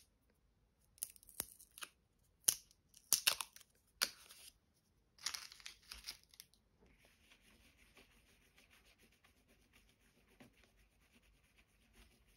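Paper label being torn and peeled off a Jackson's handmade soft pastel stick in a run of short rips and crackles. From about seven seconds in, a steady faint scratching of the soft pastel rubbed across sketchbook paper as it is swatched.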